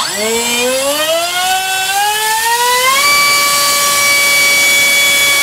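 NTM PropDrive 3536 1800 kV brushless motor spinning a TGS 5x5 propeller on a thrust test stand: a rising whine as it spools up over about three seconds, then a steady high whine held at full throttle.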